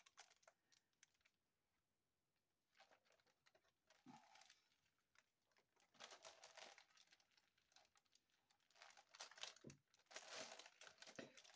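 Faint, intermittent crinkling of small plastic zip-lock bags of diamond-painting drills being handled and gathered together, busiest in the second half.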